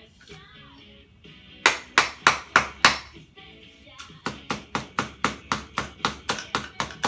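Metal hammer blows on a microwave oven transformer as its coils are cut out: five hard strikes starting a little under two seconds in, a short pause, then a quicker run of lighter strikes, about three a second. Radio music and talk play faintly behind.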